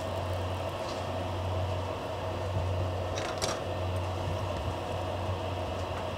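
Steady hum of a kitchen fan running, with a few faint clicks of the spatula against the frying pan as a pancake is flipped, about three seconds in.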